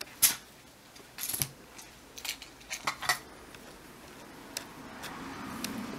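Scattered light clicks and rustles from handling and movement around a cat and a feather wand toy on a cloth; a faint low hum comes up in the last couple of seconds.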